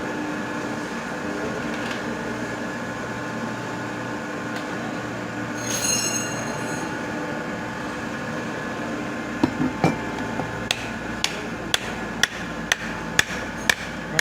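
Hammer blows on metal, a run of sharp strikes about two a second starting around two-thirds of the way in, over a steady machine hum. A single ringing metallic clink comes about halfway through.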